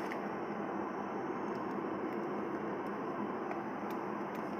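Steady cabin noise inside a Boeing 737-900 airliner: its jet engines and air system running as an even rushing hum, with a few faint light ticks.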